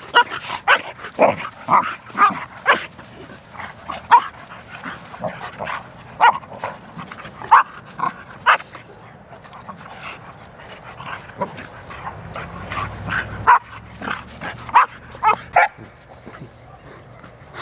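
Dogs barking and yipping in short, irregular bursts while they play-wrestle.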